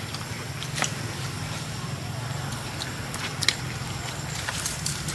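A few scattered light clicks and rustles of macaques handling fruit in dry leaf litter, over a low steady hum.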